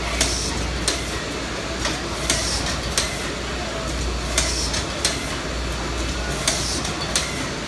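High-speed cotton bud making machine running: steady mechanical clatter over a low hum. Sharp knocks come in pairs about every two seconds, with short hissing puffs in between.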